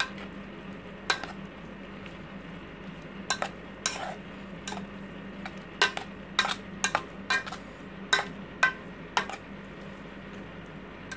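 A metal utensil clinking and scraping against a metal bowl while mixing cooked instant noodles, a dozen or so irregular sharp clinks, most of them in the middle of the stretch.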